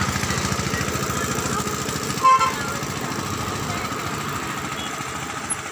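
A motor vehicle's engine runs with a fast, even pulse and slowly fades, with a short high beep about two seconds in.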